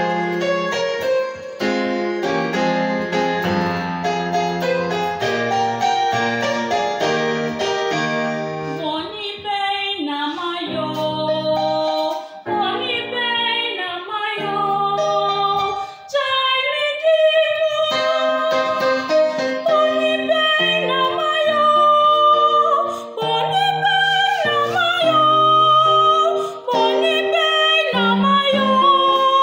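Electronic keyboard in a piano voice plays an introduction alone. About nine seconds in, a woman's solo voice enters, singing with vibrato over the keyboard accompaniment.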